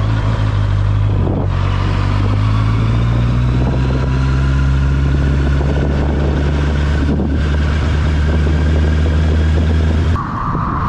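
Honda CBR650R's inline-four engine running steadily at low revs as the motorcycle rolls slowly, heard from the rider's seat. The engine sound cuts off abruptly near the end.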